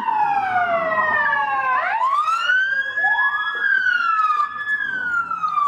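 Two or more emergency vehicle sirens wailing over one another, each tone gliding slowly down and then sweeping back up. These are the sirens of incoming units.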